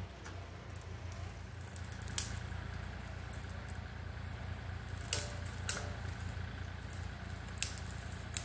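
Excavator diesel engine running as a low, steady drone, with several sharp clicks scattered through it.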